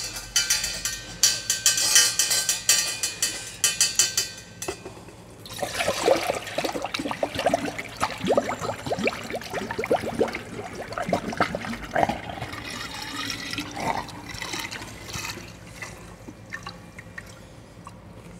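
Cold water poured from a jug through a stainless steel funnel into small oak barrels, splashing and gurgling as it runs in. The barrels are being part-filled so the dry staves swell and stop leaking. One pour ends about four seconds in, a second runs from about five seconds until about fourteen seconds in, then it dies down to a trickle.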